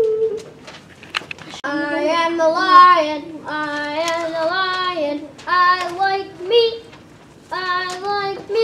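A child singing unaccompanied, with no instruments. The singing starts about a second and a half in and comes in short held phrases with brief pauses between them.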